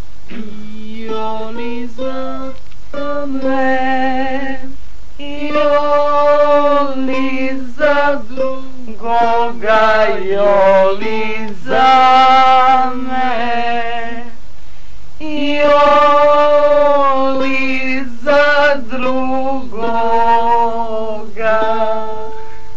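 A woman singing a slow song in long held phrases with vibrato, accompanying herself on guitar.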